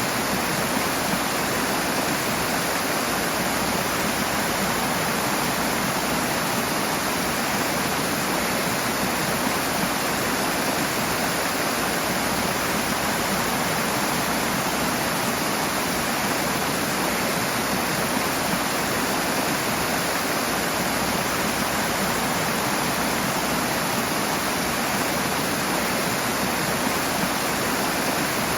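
Rushing water: a fast stream or small waterfall pouring steadily with an even, unbroken rush.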